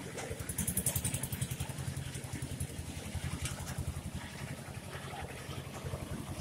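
An engine idling with a steady, rapid low pulse, most likely a moored fishing boat's engine. A brief crackling hiss rises over it from about half a second to a second and a half in.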